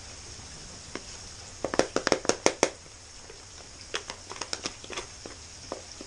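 A spoon tapping and scraping inside a plastic blender jar to knock out ground annatto (colorau) powder: a quick run of about half a dozen sharp taps, then a second, lighter run of taps about two seconds later.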